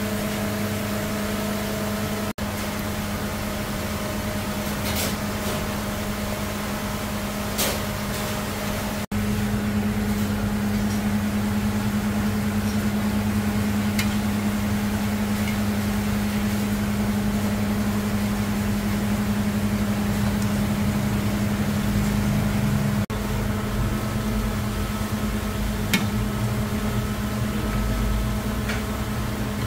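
Steady low electric hum of kitchen machinery over a hiss, with a few light clinks of a metal ladle against aluminium pots. The hum breaks off abruptly a few times.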